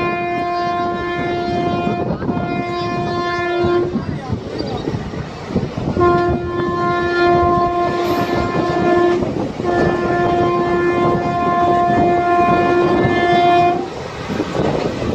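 A locomotive horn on an Indian passenger train sounds four long, steady-pitched blasts: two of about two seconds each, then, after a short pause, two longer ones of about three and four seconds. Under the horn the moving coaches keep up a running rumble and wheel clatter on the track.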